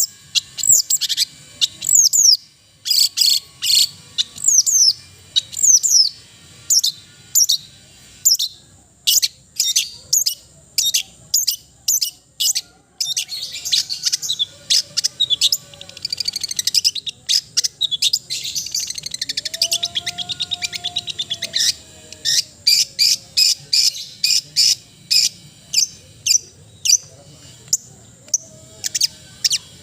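Long-tailed shrike (cendet) singing: long runs of sharp, high, quickly repeated notes and chattering phrases with short pauses between.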